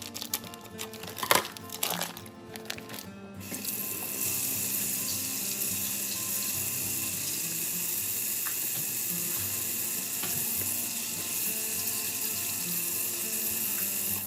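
Kitchen tap running steadily into a sink. It comes on about three and a half seconds in and cuts off sharply at the end. Before it, a few sharp crinkling and clicking handling noises.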